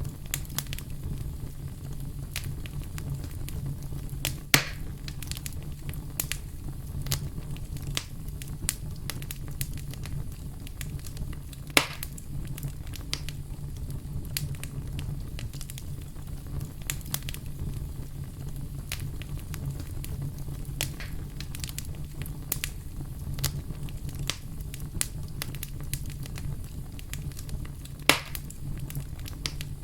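Fireplace fire crackling with a steady stream of small snaps over a low, even rumble. Three sharper, louder pops stand out: one about four seconds in, one near the middle and one near the end.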